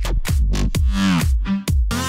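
Electronic dance music with a steady, regular beat and a synth line that glides down in pitch about halfway through.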